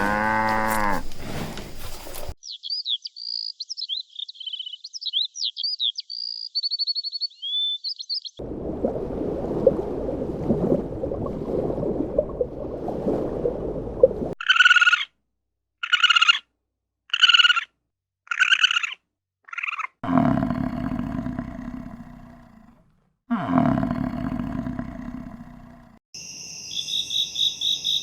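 A run of different animal calls, one after another with abrupt changes: the tail of a cow's moo, then bird chirps and song, then a low rough rumble. Then come five short high calls about a second apart, two deep calls that fall in pitch, and near the end a fast pulsing high trill.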